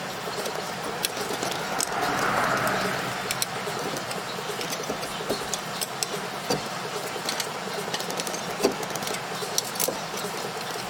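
Scattered light metallic clicks and scrapes of a rear brake caliper being pried off a worn, lipped rotor, over a steady background rush that swells briefly about two seconds in.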